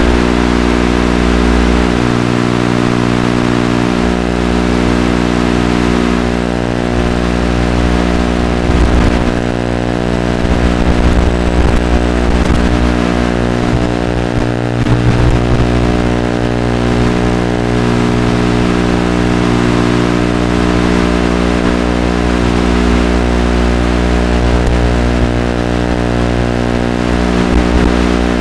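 A steady low buzzing drone that holds one pitch throughout, with many even overtones. A fainter wavering whine shows through in the middle.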